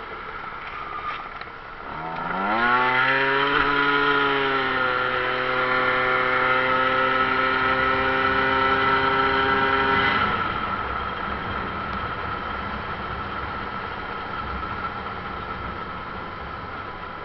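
Motorcycle engine revving up as the bike pulls away about two seconds in, then holding a nearly steady pitch under throttle. About ten seconds in the engine note drops away as the throttle is closed, leaving wind and road noise, with a steady high whine throughout.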